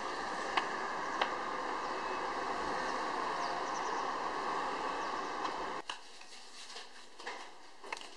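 Steady outdoor street ambience with a car driving past, and two light clicks about a second in. About six seconds in it drops off abruptly to a quiet room, where slippers tap softly on a tiled floor.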